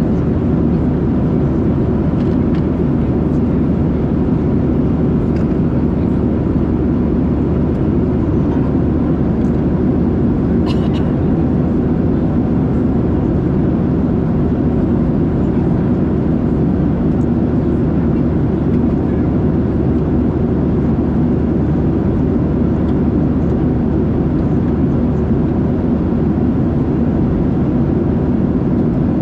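Steady cabin noise of a Boeing 737-700 in flight, the CFM56-7B engines and airflow giving an even low rush with a faint steady tone in it. A small click comes about eleven seconds in.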